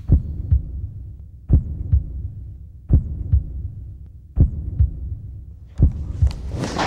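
Slow heartbeat sound effect: five low double thumps, repeating about every second and a half over a faint hum.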